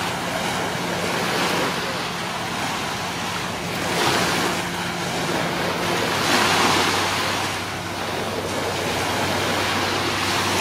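Ocean surf breaking and washing in, a steady rush that swells louder about four seconds in and again about six and a half seconds in. A faint steady low hum runs underneath.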